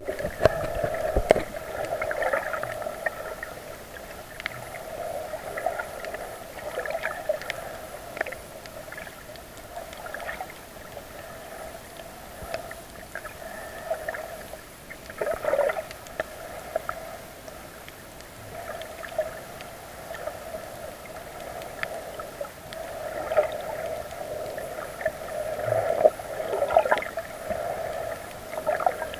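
Underwater sound picked up by a camera on a coral reef: a steady hum of a few wavering tones that swells and fades, with scattered clicks and gurgles of water.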